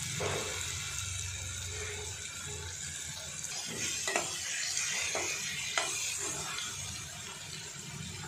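Fried taro (arbi) slices being stirred into sizzling onion-tomato masala in a metal kadai, with a steady sizzle. A spoon scrapes the pan and knocks against it a few times in the middle.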